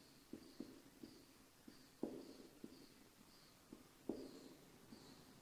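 Near silence with faint, irregular light taps, a few a second, a slightly louder one about two seconds in and another about four seconds in.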